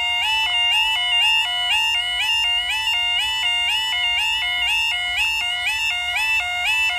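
Level crossing's electronic warning alarm sounding a steady two-tone warble, switching between a low and a high note several times a second. It is the audible warning that the barriers are coming down across the road.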